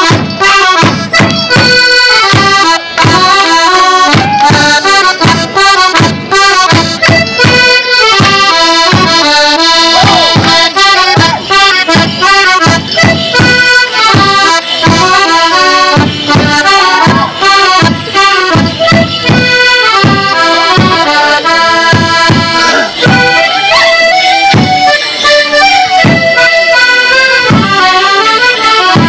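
Border Morris dance band playing a traditional folk tune, a squeezebox-like melody over a steady drum beat of about two strikes a second.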